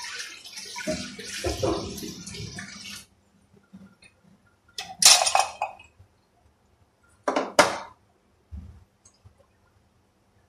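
Water pouring for about three seconds, then kitchen pots and utensils clattering: a loud clash about five seconds in and two sharp knocks a couple of seconds later.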